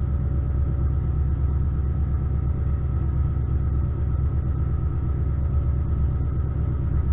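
Drag-race Camaro engine idling with a steady, low rumble, heard from inside the car's cabin.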